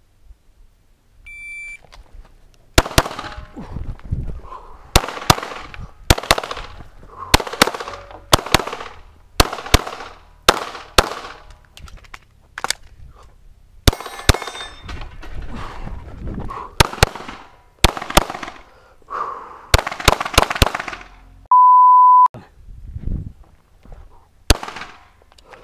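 An electronic shot timer beeps once, then a Glock pistol fires dozens of shots, mostly in quick pairs, with a short pause near the middle where the magazine is changed. Near the end a loud, steady beep of under a second cuts in, followed by one more shot.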